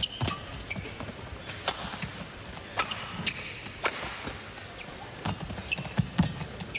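Badminton rally: a string of sharp racket strikes on the shuttlecock, irregularly spaced, with shoes squeaking and feet landing on the court mat, over a low arena hum.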